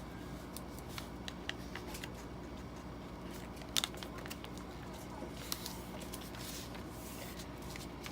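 A sheet of paper being folded and creased by hand: faint scattered crinkles and rustles, with a sharper crackle about four seconds in and another about a second and a half later, over a faint steady hum.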